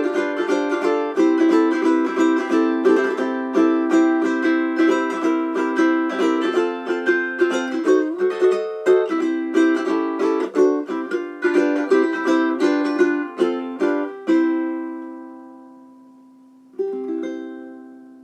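Seilen SLTS-830GS tenor ukulele, with a Brazilian rosewood back and sides and a German spruce top, played solo: a run of plucked melody notes over chords. Near the end it stops on a chord left to ring out, then one final chord sounds and dies away.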